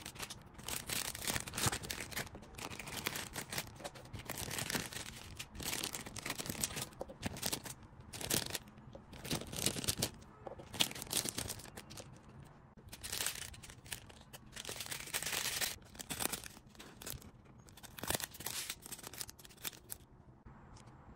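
Clear plastic packaging and small zip-lock bags being handled, crinkling and rustling in irregular bursts.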